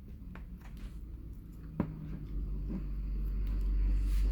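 Scattered light clicks and taps from handling and working at a plastic tablet casing, over a low rumble that grows louder toward the end.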